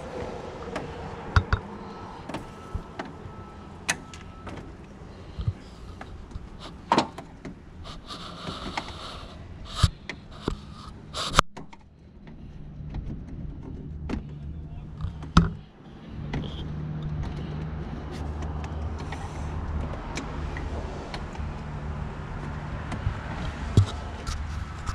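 Plastic push clips being pried and snapped out of a 2006 Chevy Silverado's plastic grille cover with pliers and a pick: scattered sharp clicks and knocks, with a stretch of scraping a third of the way in. A steady low hum comes in about two-thirds of the way through.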